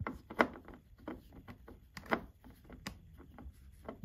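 Hand screwdriver turning a screw into a plastic TV stand leg: a run of irregular sharp clicks and scrapes, the loudest about half a second in and again about two seconds in.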